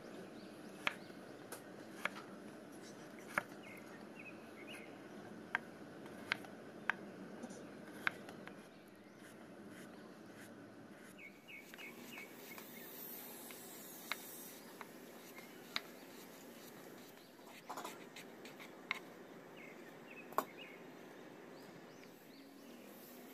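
Chef's knife cutting through slices of raw potato and knocking on a bamboo cutting board: a sharp knock every second or two, irregularly spaced, over a faint steady background hiss.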